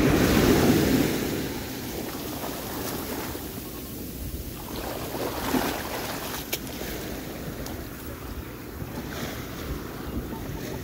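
Ocean surf washing up the beach, with wind rumbling on the microphone; a wave surge is loudest over about the first second, then the wash settles to a steady hiss.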